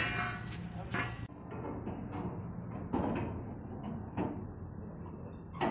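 Scattered metal knocks and thuds from a steel machine being manhandled onto a pickup truck's bed, about five sharp bangs, over a steady low hum.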